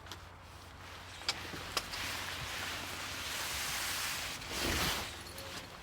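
Pop-up gazebo hub being pulled out: two sharp clicks about half a second apart, then fabric and poles rustling for several seconds, loudest near the end as the side pops out.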